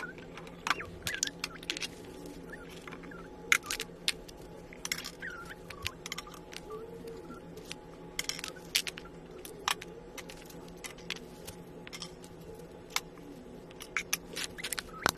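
Wooden toy kitchen parts and utensils being handled and set in place: scattered sharp clicks and knocks of wood against wood, some in quick little clusters.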